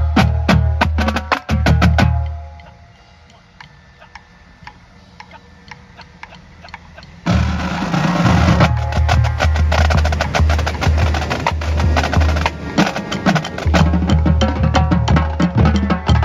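A marching drumline playing: tuned Pearl marching bass drums in pitched split notes under snare and tenor strikes. The line cuts off about two seconds in, leaving only faint clicks for a few seconds, then comes back in loud with the whole battery a little past the halfway point.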